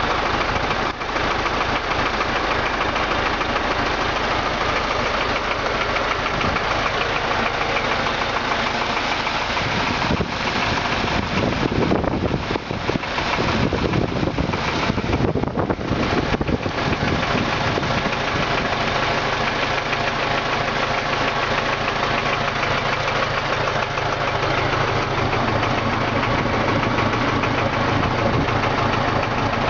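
D-245 four-cylinder diesel engine running with a foreign knock from around the fourth cylinder. It idles, is revved up for several seconds about ten seconds in, then drops back to idle. At the higher speed the knock is quieter but does not go away.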